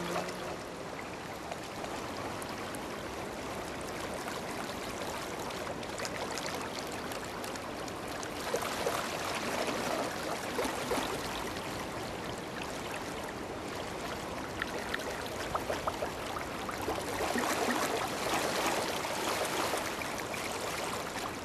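Running river water, a steady babbling and trickling that swells louder twice.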